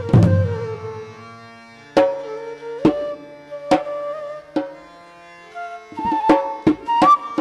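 Indian dance music: drum strokes over a held melody line that bends in pitch. There is a heavy low stroke at the start, single strokes roughly a second apart, and a quicker run of strokes near the end.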